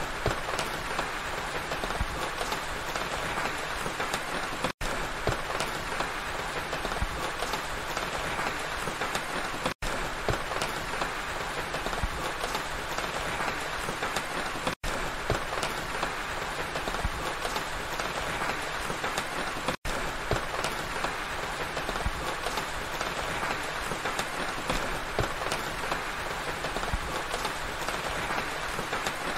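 Steady rain falling, a dense even patter. It breaks off for a split second about every five seconds.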